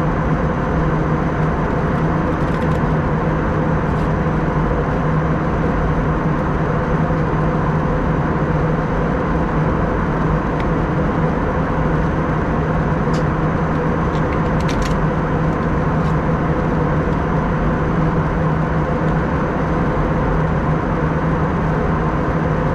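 Steady drone of an Airbus A320 in flight heard from inside the cabin: engine and airflow noise with a few steady hums running under it.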